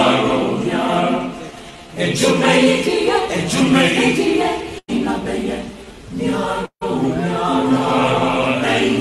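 A group of voices chanting, with sustained sung notes. The sound cuts out abruptly for an instant twice, about five seconds in and again near seven seconds.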